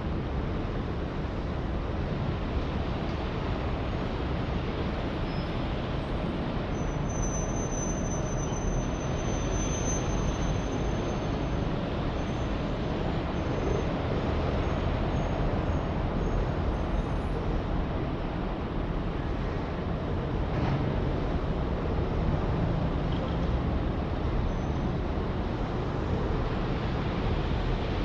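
Steady rumble of city traffic and transport noise, with a faint high squeal coming and going for about ten seconds early in the middle.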